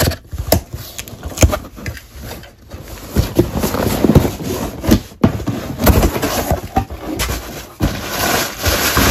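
Cardboard box being cut open and unpacked: a box cutter slitting packing tape, then cardboard flaps and paper sheets handled, with repeated scrapes and knocks.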